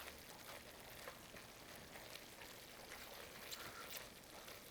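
Faint simmering and sizzling of risotto in a shallow pan, with a few light ticks.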